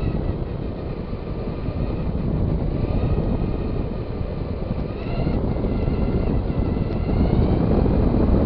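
Traxxas Stampede 2WD RC truck driving: a faint electric-motor whine that shifts in pitch with the throttle, over a loud, rough rumble of tyres and wind noise that slowly grows louder.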